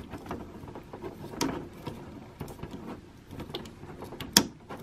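Hard plastic parts of a Fansproject Revolver Core figure and its Shadow Fisher Assault Cuirass add-on clicking and rubbing as an armour arm piece is pressed onto the figure's hand, with a sharp snap near the end as it connects.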